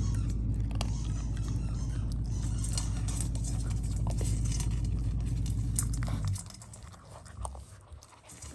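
Rottweiler puppy crunching dry kibble from a metal bowl, with scattered sharp clicks, over a steady low hum that stops about six seconds in.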